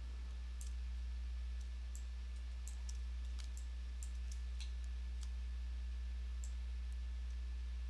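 Computer mouse clicking, about ten short, sharp clicks at uneven intervals, over a steady low electrical hum.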